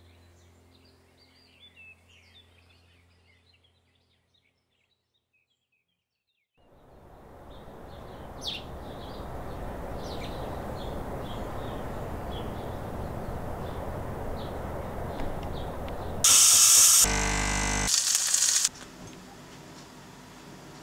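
Outdoor ambience: faint birdsong for the first few seconds, a short near-silent gap, then a steady hiss-like noise. A much louder burst of noise comes about sixteen seconds in and lasts two to three seconds.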